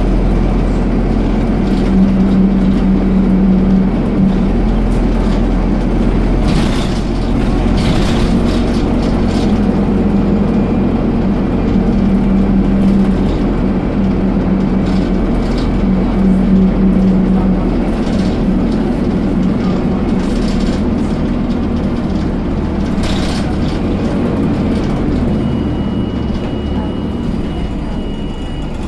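Dennis Dart SLF bus with Caetano Nimbus body, heard from inside while on the move: steady engine and road noise. A strong low drone rises and falls away several times, the unexplained noise this bus makes under acceleration. There are a few short rattles, and a thin steady high tone during the last few seconds.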